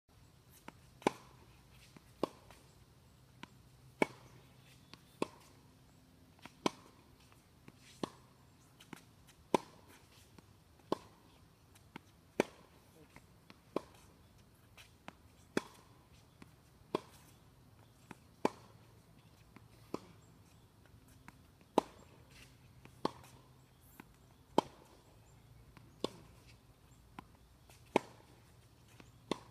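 Tennis rally: a ball struck by rackets, a sharp pop about every second and a half, alternating louder and softer, with fainter ball bounces on the hard court in between.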